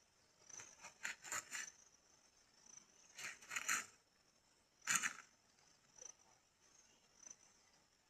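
Short scraping and rustling sounds in three clusters, the loudest a single scrape about five seconds in, over insects chirping repeatedly and high-pitched in the background.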